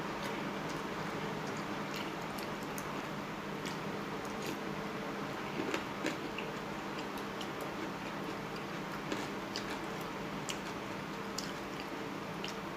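A person eating boat noodles, with scattered small clicks and smacks of chewing and utensils at an irregular pace, over a steady low hum.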